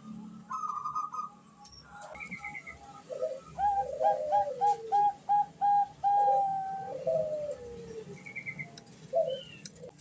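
Female Bangkok zebra doves (perkutut) cooing: a quick run of short, even coos, about three a second, overlapped by notes that glide downward, with shorter phrases before and after. This is the female's call to a male.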